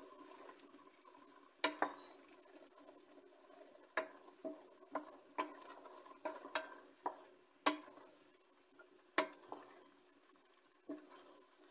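Wooden spoon stirring chicken, onions and mushrooms in a stainless steel pot, knocking and scraping against the pot in irregular strokes from about two seconds in.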